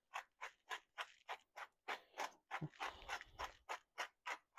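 Handheld pepper grinder being twisted to grind black peppercorns, giving short, faint gritty crunches in a steady rhythm of about three to four a second.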